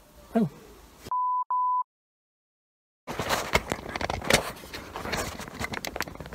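A steady, mid-pitched electronic beep lasting under a second, with a tiny break in the middle, set between stretches of dead silence. Then, about three seconds in, irregular rustling and clicking of a phone being handled and repositioned.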